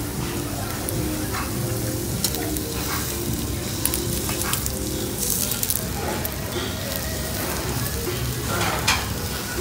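Steak and shrimp sizzling on a hot Korean BBQ tabletop grill, with metal tongs scraping and clicking against the grill as the steak is moved and lifted. The sizzle is steady, and a sharper click comes near the end.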